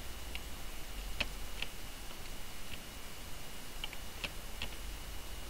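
About seven short, faint clicks at uneven intervals, over a steady thin high-pitched whine and a low hum.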